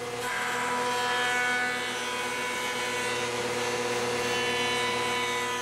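Jointer running with a steady whine and hiss as a board's edge is fed across the cutterhead, squaring the edge to the face.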